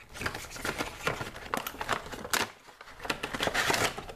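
Cardboard Funko Pop box being opened by hand and its clear plastic insert pulled out: crinkling and rustling of plastic and cardboard with many small clicks, and a short lull about two and a half seconds in.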